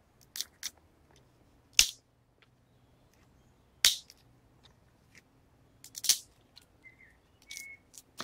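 A series of sharp cracks, a loud one about every two seconds, with fainter clicks between them.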